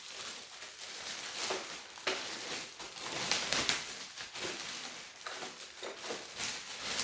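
Packaging being handled: plastic wrapping rustling and crinkling, with scattered light clicks and knocks, as protective packing is pulled off a robot vacuum cleaner.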